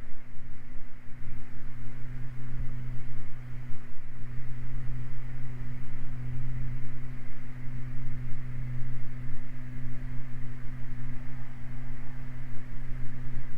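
Cabin noise of a Beechcraft Baron in flight: its twin piston engines and propellers drone steadily as a low hum, with a hiss of airflow over it.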